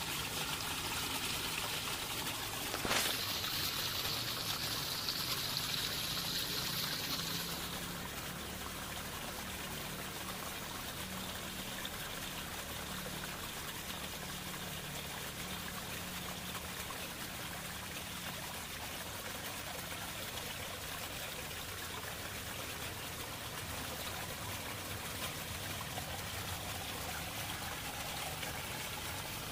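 Water trickling steadily in an aquaponics system. There is a single sharp click about three seconds in, and the trickle is a little louder for the next few seconds.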